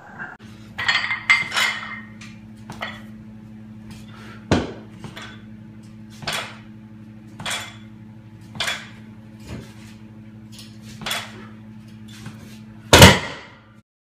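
Iron plates on a heavily loaded plate-loaded dumbbell clanking during one-arm rows, about once a second as each rep is pulled. The loudest clank comes near the end, over a steady low hum.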